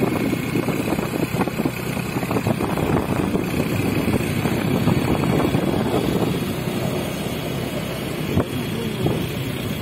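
Wind buffeting the microphone and the running noise of a moving motor scooter, a steady rushing rumble, with one short click near the end.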